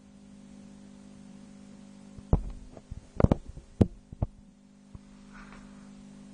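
Lego ellipsograph being handled and turned, its plastic parts giving a quick cluster of sharp clicks and knocks over about two seconds, over a steady low electrical hum.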